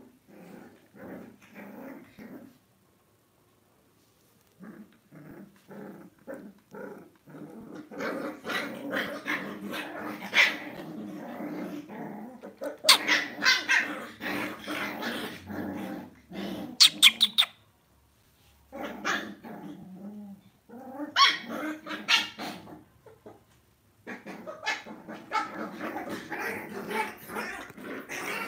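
Lhasa Apso puppies play-fighting: continuous rough puppy growling broken by sharp yips and small barks, the yips loudest around the middle.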